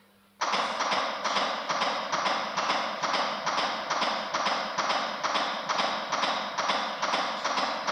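Chest compressions on a CPR training manikin: an even series of strokes at about two a second, the pace of resuscitation compressions, starting suddenly about half a second in after the rescue breaths.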